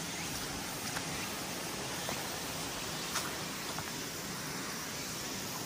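Steady rushing outdoor background noise, with a few faint, brief clicks of footsteps on gravel and leaf litter.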